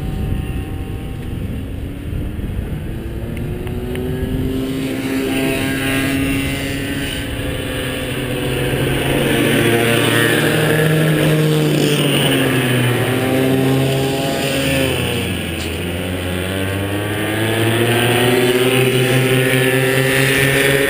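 Small 50cc and 80cc kid-kart two-stroke engines buzzing as karts lap the track. The pitch rises and falls as they accelerate and lift off. The sound grows louder as karts come near, about ten seconds in and again near the end.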